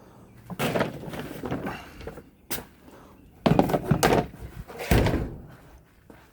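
Clatter and thuds of stored metal and plastic items being shifted and set down, in two spells with a sharp knock between them.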